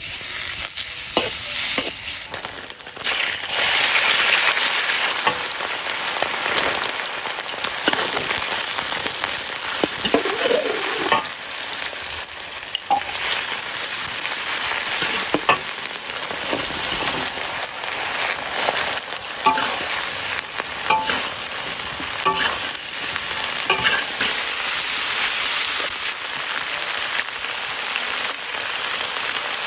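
Chopped chili peppers being stir-fried in hot oil, with a steady loud sizzle. A spatula knocks and scrapes against the pan again and again as the peppers are tossed.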